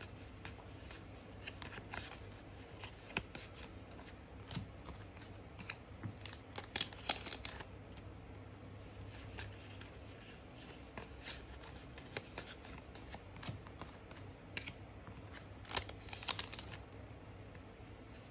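Yu-Gi-Oh trading cards being handled and flipped through by hand: faint, irregular rustles and flicks of card stock, over a low steady hum.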